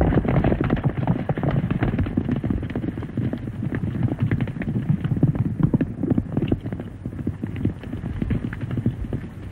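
Several horses galloping on dirt: a rapid, dense patter of hoofbeats that grows fainter toward the end as the riders move off.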